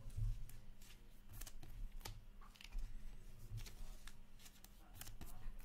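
2022-23 Upper Deck Ice hockey trading cards being handled and dealt onto stacks on a table: scattered light slides, flicks and taps of card stock, with a few soft thumps.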